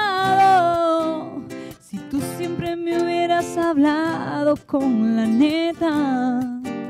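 A song sung over acoustic guitar, the voice holding long notes that slide between pitches.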